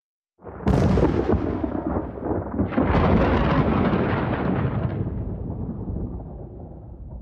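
Thunder sound effect: a sharp crack about half a second in, a second clap near three seconds, then a long rolling rumble that slowly fades. It is the lightning-strike effect of a Haunted Mansion changing portrait.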